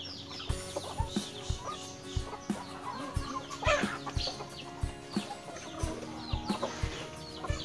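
Chickens clucking, with many short, high peeps that fall in pitch, over a string of dull low thumps about three a second.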